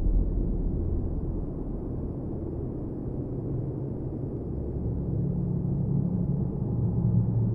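Background music: a low, droning passage with held bass tones and little high end, dipping quieter a couple of seconds in and swelling again near the end.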